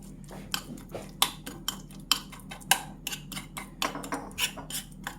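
Small fork clicking and scraping against a dish while mashing boiled garlic cloves into a paste: quick irregular clicks, about three or four a second.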